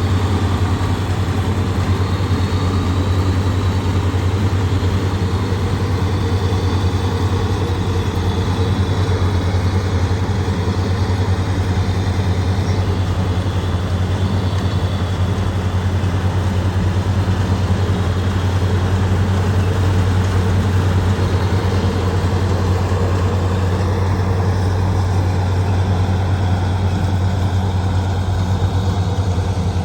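Engine of a harvest machine running steadily at an even speed, with a strong low hum.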